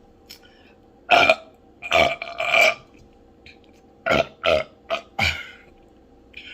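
A person burping loudly in a string of short, deep burps: three from about one to three seconds in, then four more in quicker succession from about four to five and a half seconds in.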